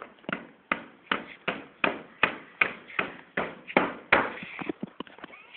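Hammer driving nails into wooden centring planks: a steady run of about a dozen sharp blows, roughly three a second, easing off near the end.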